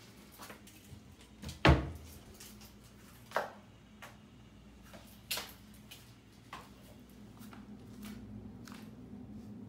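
A few scattered knocks and clicks, the loudest about two seconds in, with a faint steady hum coming in near the end.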